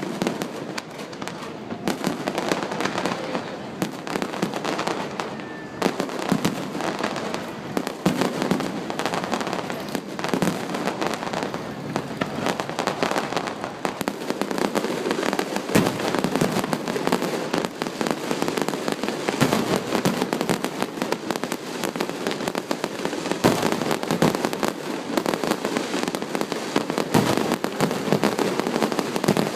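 Fireworks display: a dense, continuous run of bangs and crackling bursts, one after another.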